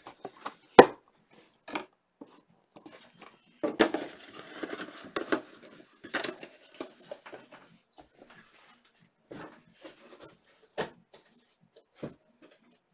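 Objects handled on a tabletop: scattered sharp taps and clicks, the loudest about a second in, with a stretch of soft rustling in the middle.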